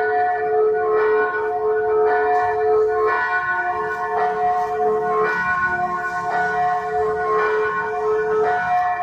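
Church bells ringing, with a new strike about every second over the lingering ring of the earlier ones.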